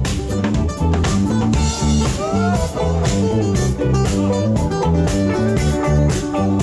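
Live band playing: electric guitar, bass guitar and acoustic guitar over a steady beat.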